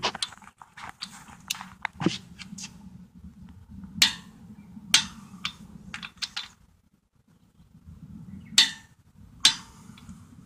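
Half-inch-drive click-type torque wrench set to 90 foot-pounds, clicking as it is pulled on lug nuts of an alloy wheel, with lighter metal clinks of the socket going onto the nuts; the loudest clicks come in pairs about four seconds in and near the end. The nuts do not turn before the wrench clicks, the sign that they are tightened beyond 90 foot-pounds.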